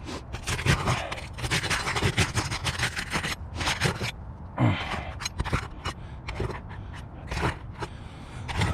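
Asphalt roof shingles being pried up, scraping and crackling as their sealant strips are broken loose. Dense scraping for the first few seconds, then separate, sparser scrapes and clicks.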